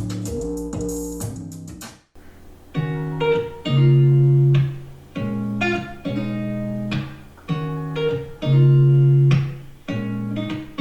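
A song with plucked guitar and bass playing through a Google smart speaker. The music cuts out briefly about two seconds in, then resumes with a different, fuller low end.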